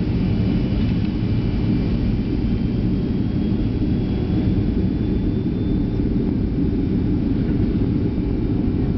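Boeing 737 jet engines at takeoff thrust during the takeoff roll, heard from inside the cabin: a steady, loud rumble with a faint high whine above it.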